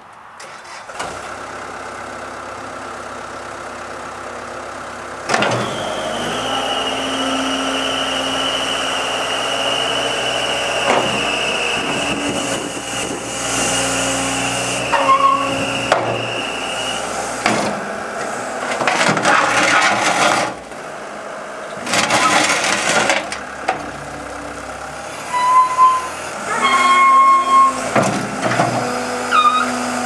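Cat 287B compact track loader's diesel engine starting about a second in, then running and revving up about five seconds in, with a steady high whine as the machine drives on its tracks and lifts its bucket. Short beeps near the end, as of its backup alarm.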